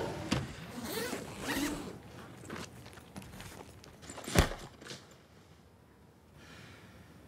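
Suitcase zipper pulled in a run of quick rasping strokes, then one sharp thump about four seconds in as the suitcase lid comes down.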